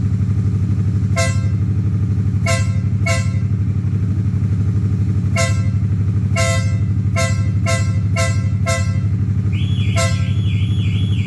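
Harley-Davidson Sportster S's Revolution Max 1250T V-twin idling steadily while a horn gives about ten short beeps in uneven bursts. Near the end a warbling alarm-like tone starts, going up and down about twice a second.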